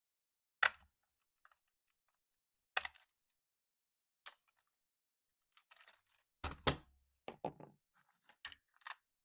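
Handling sounds from unboxing a toy RC car: isolated sharp plastic clicks and knocks, a brief rustle a little past halfway, then a quick run of knocks near the end.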